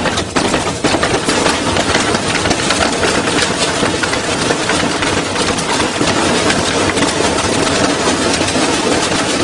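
Front-loading washing machine spinning hard out of balance, the whole cabinet shaking and banging against its wooden pallet in a loud, continuous, rapid clatter. The door has broken open and the machine is shaking itself apart.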